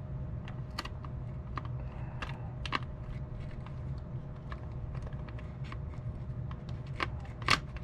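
Light plastic clicks and taps as the back cover of a Sony WA-55 cassette recorder is worked loose and pulled out, with a sharper click near the end, over a steady low hum.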